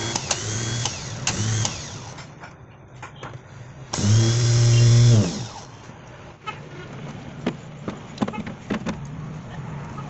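Repaired Tata Super Ace starter motor bench-tested on battery leads: a few short whirring spins in the first two seconds, then a louder run of about a second and a half from four seconds in that winds down when the power is cut. Light clicks and knocks of handling the motor follow.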